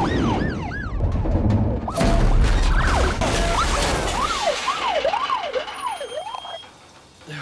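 Police car sirens wailing in quick rising-and-falling sweeps over heavy engine rumble, with a sudden loud burst about two seconds in; the sirens and rumble fade out near the end.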